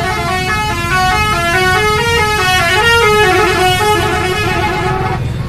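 Grand Maestro musical horn playing a tune of quick stepped notes that moves up and down in pitch, stopping shortly before the end.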